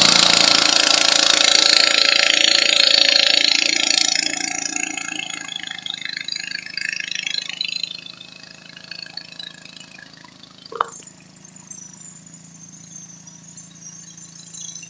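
Modified garden pulling tractor's engine running hard under load as it drags the weight sled down the track, fading away over the first several seconds. Under it, a nearby farm tractor's engine idles with a steady low hum, and there is one sharp knock near the middle.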